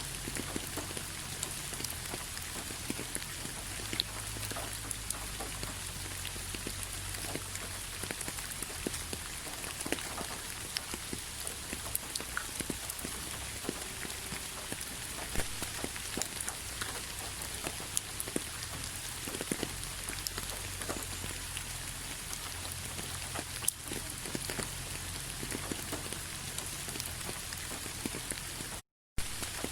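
Steady rain with many scattered sharp raindrop taps on a surface over an even hiss. The sound cuts out for a fraction of a second near the end.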